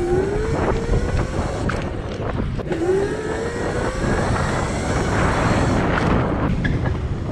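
Razor MX500 electric dirt bike's motor whining as it accelerates, the pitch rising twice, with wind noise on the microphone and a few sharp knocks.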